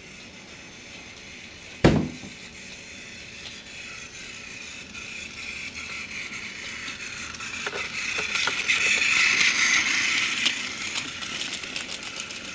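A sharp knock about two seconds in, then the whine of a battery-powered toy Thomas tank engine's small motor and the rattle of its wheels on plastic track as it comes closer. The whine and rattle are loudest about nine to ten seconds in, then fade as it passes.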